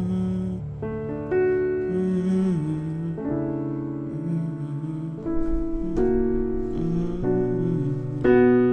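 Piano playing slow, sustained chords in D major, moving from D major 7 over F♯ to A add11 over C♯ to B minor, with a new chord struck every second or two.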